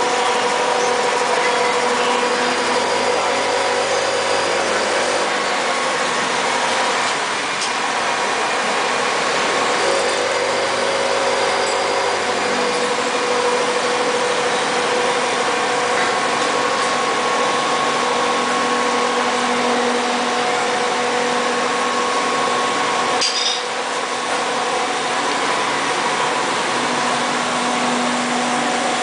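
Knife grinding machine running: its electric motor spins a cup grinding wheel, giving a steady hum with several whining tones over a hiss. A second, lower hum joins twice for a few seconds, and one sharp click comes about three-quarters of the way through.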